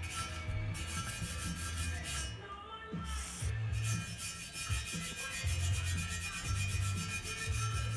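A soft brass-bristle brush scrubbing rapidly back and forth on an aluminium Sea-Doo 951 crankcase half, scraping old silicone sealant off the machined mating surface. The strokes pause briefly about two and a half seconds in.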